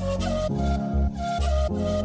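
Background music with a steady beat and a pitched melody line over it.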